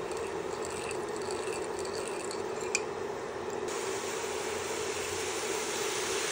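Beef sizzling in a hot cast-iron skillet, with a few light clinks of a plastic spoon against a ceramic sauce bowl in the first three seconds. About three and a half seconds in, the sizzle turns hissier as the sauce is poured onto the hot pan.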